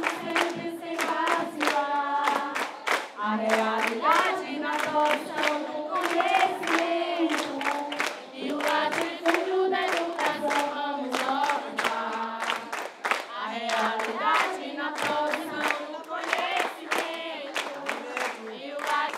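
A group of young voices singing together, with steady hand claps keeping the beat.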